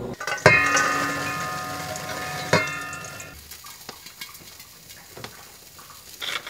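Stainless steel mixing bowl knocked twice on the counter, about half a second in and again at about two and a half seconds. Each knock rings on for a couple of seconds with several steady metallic tones, then fades to quieter small clinks.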